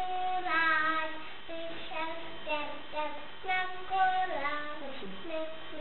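Young child singing a tune in held notes that step from one pitch to the next, dipping lower about four seconds in.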